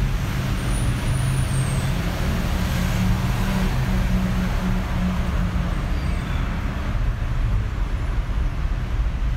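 Steady road traffic on a city street: motor vehicle engines running with a continuous low hum.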